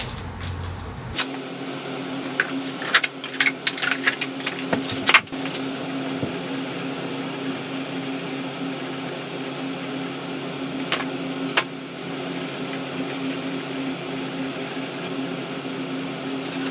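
New motorcycle tire being unwrapped and handled: rustling paper and knocks of rubber for the first five or six seconds. A steady machine hum runs under it, with only a couple of light clicks later on.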